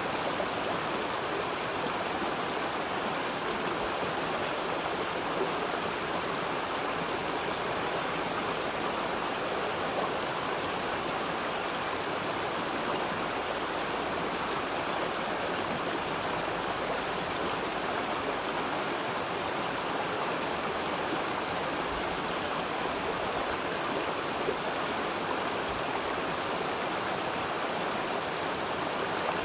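Running water of a stream, flowing in a steady, even rush that does not change.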